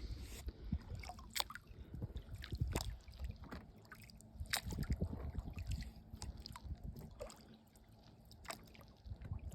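Kayak paddling: water splashing and dripping off the paddle blades in scattered short strokes, over a low rumble.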